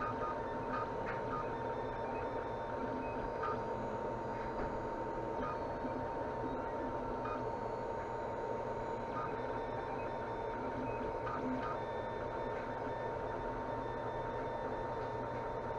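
Tevo Tornado 3D printer printing: its stepper motors give short, shifting pitched whines as the head and bed move, over a steady fan noise and a constant high hum.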